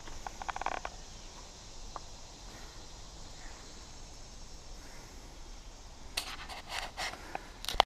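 Faint outdoor ambience with a steady hiss, a few short rustling clicks in the first second, and a cluster of louder rustles and handling noises in the last two seconds.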